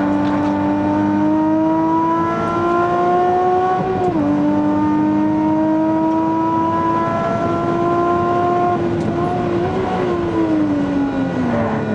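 Nissan Fairlady Z's V6 engine heard from inside the cabin under hard acceleration on track: the pitch climbs, drops sharply at an upshift about four seconds in, and climbs again. Around nine seconds in the driver lifts off and the engine note falls steadily as the car slows for the next corner.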